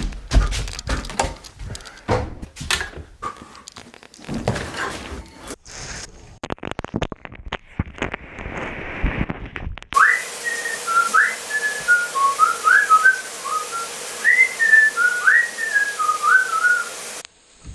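Scattered knocks and clatters, then, about ten seconds in, a person whistling a short tune of quick notes and slides over a steady hiss.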